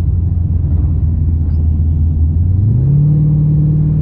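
Holden VX Commodore SS's 5.7-litre LS1 V8, fitted with an aftermarket exhaust and intake, running at low engine speed with a steady rumble; about three seconds in its pitch steps up a little and holds as the revs rise slightly.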